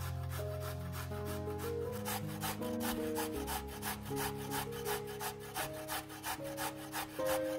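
Carrot being grated on a stainless steel box grater: quick, even rasping strokes, about four a second.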